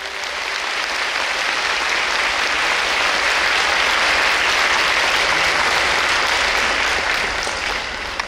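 Concert audience applauding, swelling over the first second and easing off near the end.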